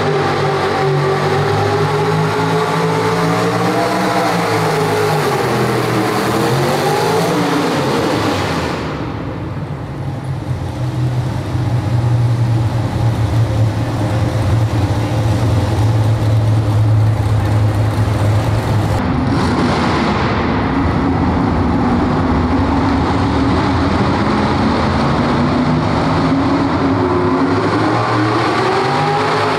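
Pro street two-wheel-drive pulling trucks' engines running hard under load while dragging a pulling sled. The engine pitch sags and recovers early on, gives way to a lower steady drone in the middle, then climbs again as the next truck pulls.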